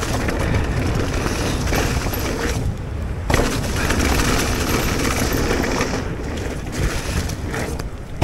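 An e-mountain bike ridden over rough ground: constant rumbling and clattering from the bike and wind buffeting the microphone, with a knock about three seconds in. The rattle is the Shimano EP8 motor's known clatter from its decoupling.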